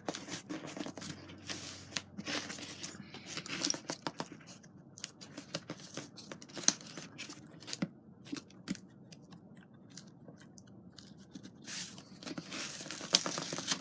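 A package being opened by hand: packaging tearing and rustling in irregular bursts, with sharp clicks and snips.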